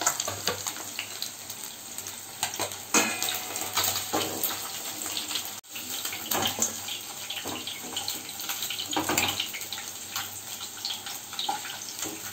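Hot mustard oil sizzling and crackling steadily in a nonstick kadai as fried rui (rohu) fish steaks are lifted out with a slotted spatula, with light clicks of the spatula against the pan.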